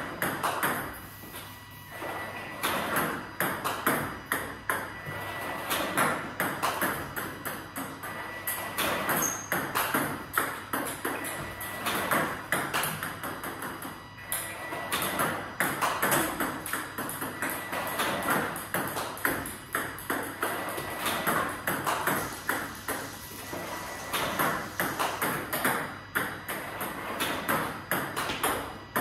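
Table tennis balls (DHS D40+ plastic) clicking in quick succession: served by an Amicus Prime robot, bouncing on the table and struck with a bat in repeated backhand banana flicks.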